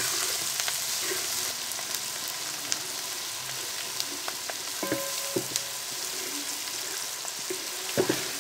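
Sliced green chillies, garlic and ginger sizzling in hot oil in a wide metal pan, stirred with a spatula that scrapes and clicks against the pan, with a short ringing clang about five seconds in. The pieces are being fried until their moisture cooks off.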